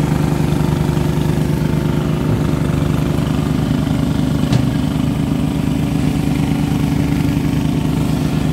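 A small engine running at a steady speed, with an even, rapid pulse.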